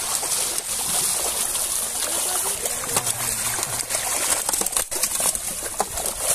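Water splashing and trickling steadily, with many small splashes, as fish thrash in a seine net being drawn in through shallow water.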